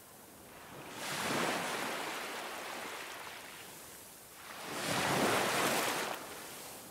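Ocean surf breaking on a sandy beach: two waves surge and wash in, one about a second in and another about five seconds in, each swelling and then fading.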